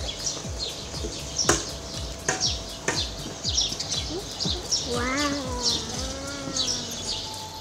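Small birds chirping over and over in short, high calls, with a few sharp clicks. About five seconds in, two brief pitched calls sound, the first louder.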